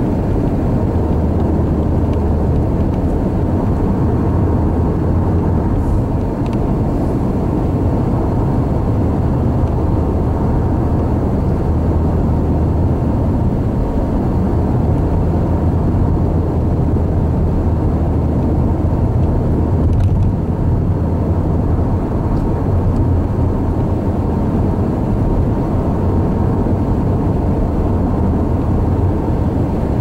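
Car interior noise while driving at highway speed: a steady, low rumble of tyres on the road and the engine.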